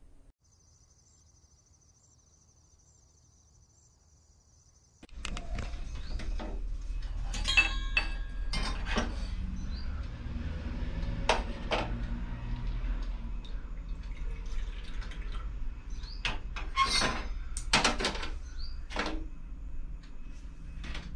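Near silence for about five seconds, then metal pots, pans and utensils clinking and knocking on a gas stove during cooking: a series of sharp metallic knocks, some ringing briefly, over a steady low rumble.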